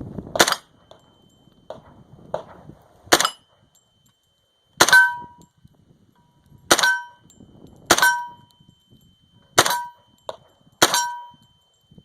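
Seven single shots from a UMP 45 .45 ACP submachine gun, fired one at a time a second or two apart. From the third shot on, each is followed by a ringing clang of a steel target being hit.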